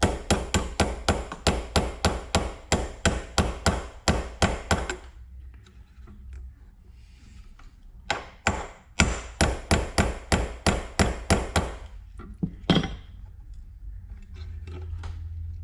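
Hammer tapping a pin punch to drive a pin through a spring in an oil filler cap: a quick run of light metal taps, about five a second, then a pause of about three seconds and a second run of taps. One harder strike lands near the end.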